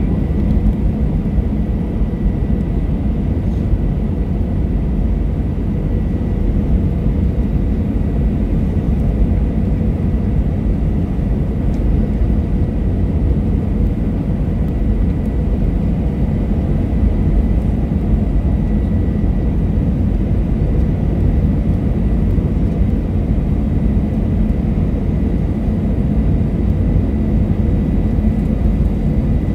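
Airbus A321 jet engines and airflow heard inside the passenger cabin from a window seat over the wing during the descent to land: a steady low rumble with a thin, steady whine running through it.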